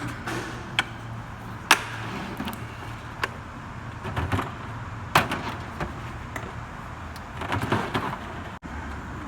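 Scattered clicks, knocks and a brief rattle of tool kits and their cases being handled, closed and set down, over a steady low hum.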